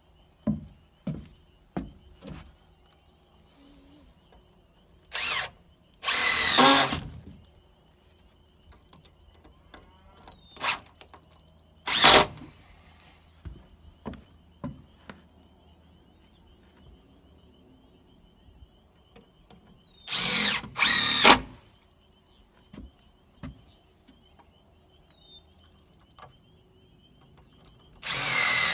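Power drill run in several short bursts of about a second or less, driving into the timber frame's joinery.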